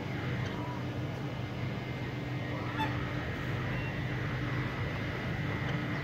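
Domestic geese honking now and then over a steady low hum.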